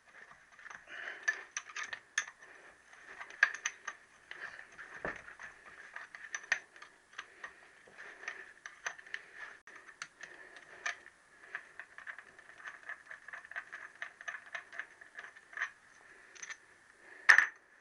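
Hand tools working bolts out of a Triumph T120R's alloy crankcase: many irregular small metallic clicks and clinks, with one louder clink near the end.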